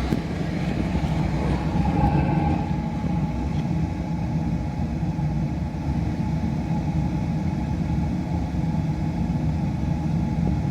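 Beckett oil burner firing on a hydronic boiler: a steady, unbroken rumble of burner fan and flame, with a faint steady hum over it.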